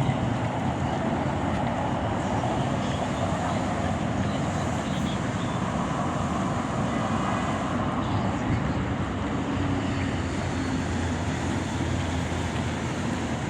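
Steady city traffic ambience: engines and tyres of vehicles running along a busy avenue, with the indistinct voices of passers-by.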